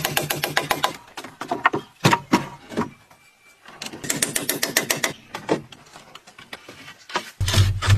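Bursts of rapid mechanical clicking, many clicks a second, stopping and starting with short pauses between, and a low hum coming in near the end.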